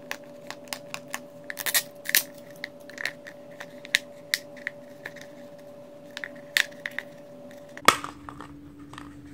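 Hard plastic gachapon capsule being worked open by hand: an irregular run of sharp plastic clicks and creaks as it is gripped and twisted, with a louder snap just before the end as the two halves come apart.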